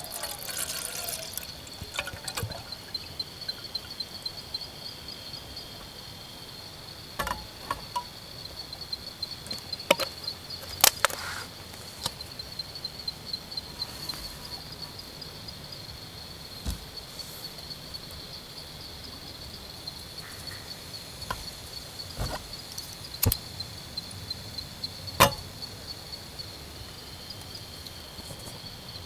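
Insects chirping in a steady, high, pulsing trill, with scattered sharp clicks and knocks over it.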